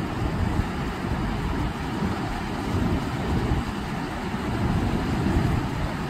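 Wind buffeting the phone's microphone in an uneven low rumble, over the steady wash of surf breaking on the rocks.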